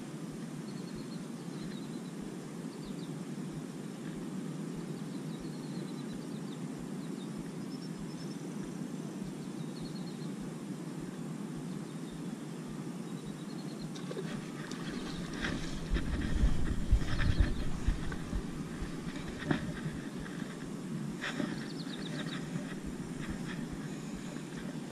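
Steady outdoor background noise beside still water, with faint short high chirps in the first half. From a little past halfway, a run of sharp clicks and knocks sets in, with a louder low rumble for a couple of seconds, typical of handling noise against the microphone.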